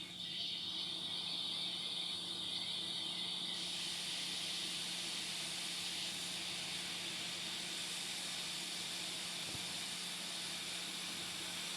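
Hot-air rework station blowing a steady hiss of hot air onto the back of a circuit board to reflow the solder on a charging port. The hiss changes character about three and a half seconds in, with a low steady hum underneath.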